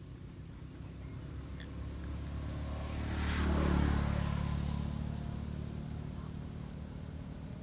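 A motor engine passing by: a low, steady engine hum that swells to its loudest about four seconds in and then fades away.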